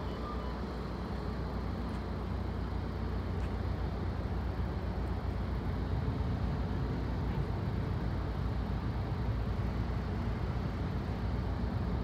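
Caltrain diesel commuter train pulling slowly into the station and drawing to a stop: a steady low rumble that grows a little louder over the first half.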